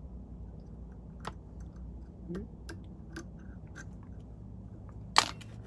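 Light scattered clicks and ticks of thread being wound off a bobbin with a whip finishing tool around the head of a fly, with one sharp, loud click about five seconds in.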